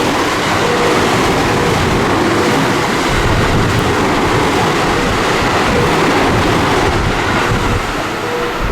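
Electric train running along a station platform: a loud, steady rush of wheel and motor noise that eases a little near the end.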